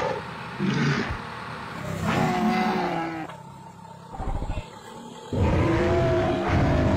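Truck engine running at low revs as the truck manoeuvres, with two long, drawn-out shouted calls, about two seconds in and again from about five seconds in, the second louder.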